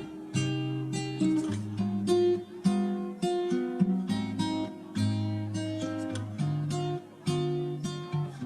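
Background music: an acoustic guitar playing a run of plucked notes and strums.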